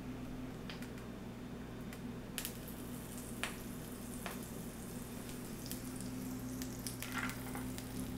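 Hot avocado oil in a cast iron pan sizzling, with scattered crackles and pops, as a butter-coated, spice-crusted salmon fillet is laid in skin down; the sizzle picks up a couple of seconds in. A steady low hum runs underneath.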